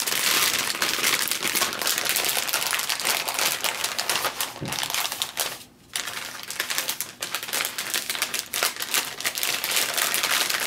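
Crinkling and rustling of a plastic flameless ration heater bag (MealSpec) being handled and opened by hand, a busy stream of small crackles with a brief pause just past halfway.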